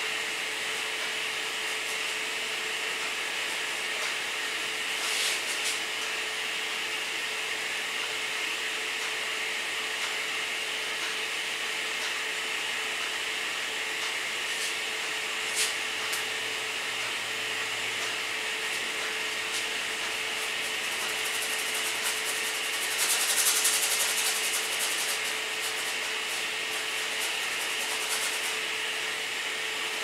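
Bristle paintbrush rubbing acrylic paint onto a stretched canvas, over a steady hiss and a faint steady hum. There are a couple of light clicks, and the brushing grows louder and scratchier for about two seconds near the three-quarter mark.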